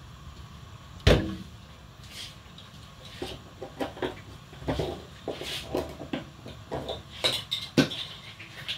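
Kitchen clatter of pots and utensils being handled: one loud knock about a second in, then a run of lighter clicks and knocks.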